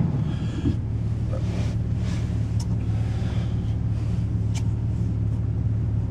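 Steady low drone of a vehicle's engine and road noise, with a few faint ticks.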